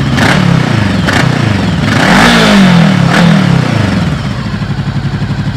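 Voge 500R's 471 cc liquid-cooled parallel-twin engine idling, blipped twice in the first second and revved harder about two seconds in, then settling back to a steady idle. The exhaust note is deep, strong and full.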